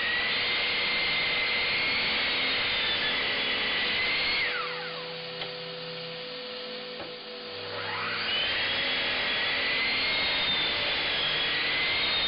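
Mitre saw motor run twice: it spins up, runs steadily for about four seconds, winds down, then spins up and runs again, winding down near the end. A dust extractor runs steadily underneath throughout.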